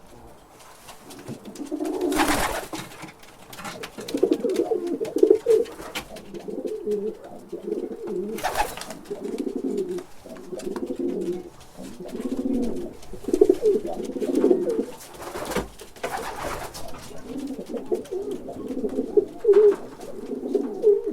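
Pigeon cooing, low phrases repeated one after another, with three short rushes of noise in between.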